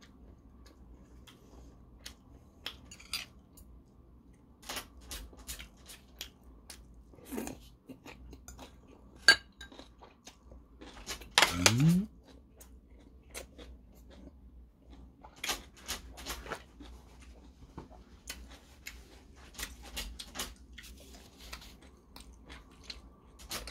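A person eating a kimchi stew meal with rice and kimchi: chewing with scattered light clicks and clinks of cutlery against dishes, one sharp clink about nine seconds in. Around halfway there is a short rising vocal sound from the eater.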